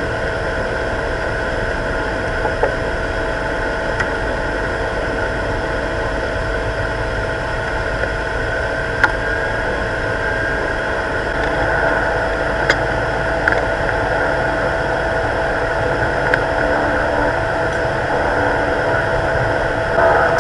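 Beechcraft King Air's twin PT6A turboprop engines running at low power on the ground, heard inside the cockpit: a steady engine whine over a low rumble, with a few light clicks. The engine sound grows slightly louder about halfway through and again near the end.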